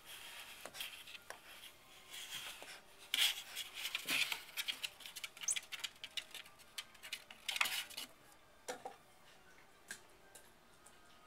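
Cairn Terrier puppy's claws scrabbling and scratching against the inside of a cardboard packaging tube: a busy run of clicks and scrapes, loudest from about three to nine seconds in, then only a few scattered clicks.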